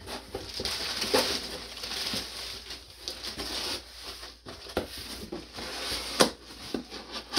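Cardboard boxes and clothing being handled: ongoing rustling and crinkling with a few light knocks, the sharpest about six seconds in.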